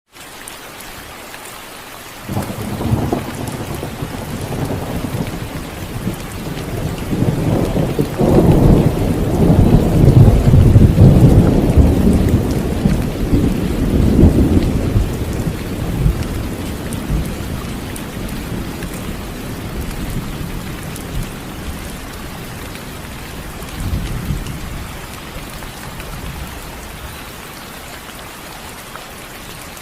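Steady rain with a long rolling thunder rumble that starts suddenly about two seconds in, builds to its loudest around ten seconds, then dies away slowly, with a smaller rumble near the end.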